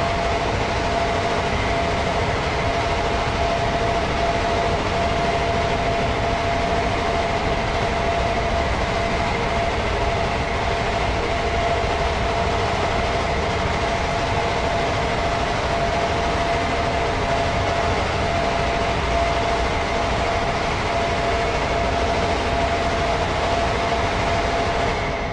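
Steady, unchanging mechanical rumble and hiss with a constant hum in it, like a large vehicle or machine running.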